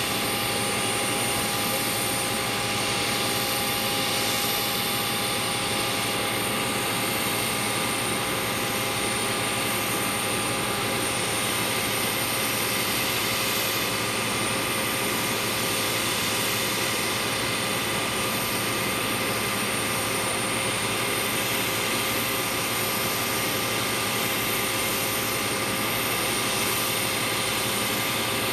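Steady turbine whine of a parked Boeing 737, its auxiliary power unit running: a few fixed high tones over an even rush that holds at one level throughout.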